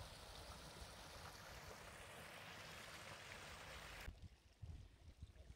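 Small woodland brook trickling and splashing over rocks in a steady wash of water noise, which cuts off abruptly about four seconds in.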